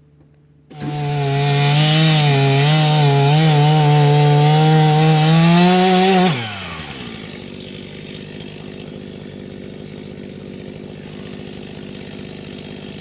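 Chainsaw starts suddenly under a second in and runs at full throttle with a slightly wavering pitch for about five seconds. The pitch then falls as it drops back to a steady idle.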